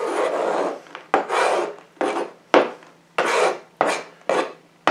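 A knife blade scraped across a plastic cutting board, pushing chopped dried cranberries and raisins together. There are about seven separate scraping strokes, each starting sharply and fading.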